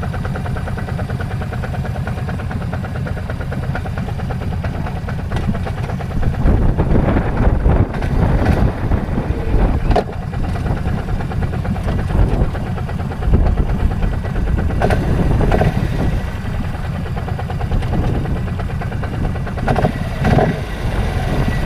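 ATV engine running, louder and rougher from about six seconds in, with a few sharp knocks.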